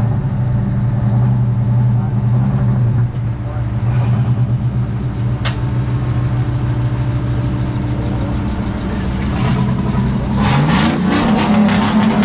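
Excavator's diesel engine running steadily, its revs rising about ten and a half seconds in.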